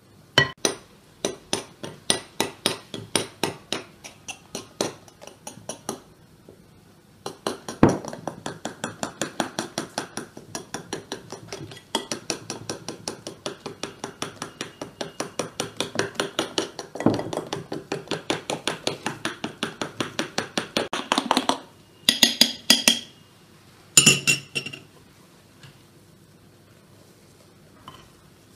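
A utensil beaten quickly by hand against a glass bowl, mixing a cake batter: a fast, even run of clinks, about three to four a second, with a short pause about six seconds in. A few separate clatters of the bowl and utensil follow near the end.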